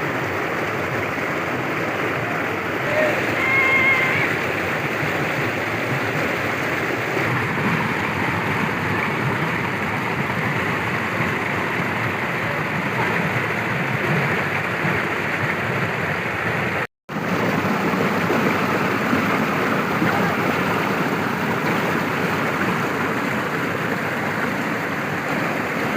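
Waterfall and its river rushing steadily: an even, continuous wash of falling water. It breaks off for a split second about seventeen seconds in.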